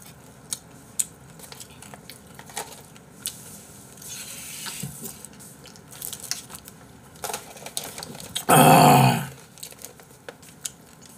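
Small clicks and clatter of dishes, chopsticks and packaging handled at a meal table. A loud, short burst of noise comes a little over eight seconds in.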